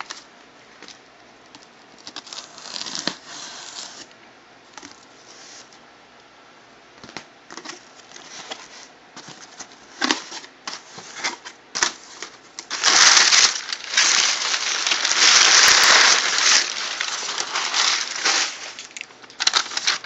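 A cardboard shipping box being opened and handled: scattered light knocks and scrapes, then about five seconds of loud, continuous rustling and scraping about two-thirds of the way through.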